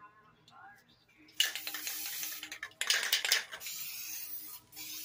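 Aerosol spray can of clear coat, its mixing ball rattling as the can is shaken, then a steady spraying hiss from about three and a half seconds in that stops briefly near the end.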